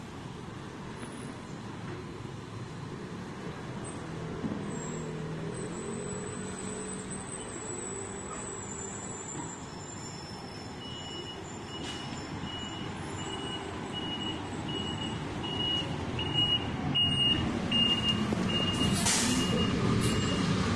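City bus running, heard from inside, its engine growing louder in the second half. From about halfway in, a high electronic beep repeats about one and a half times a second, and a short hiss of air sounds near the end.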